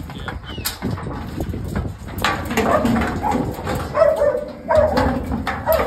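Working sheepdog barking at sheep packed in the yards: a run of short barks that starts about two seconds in and comes roughly once a second.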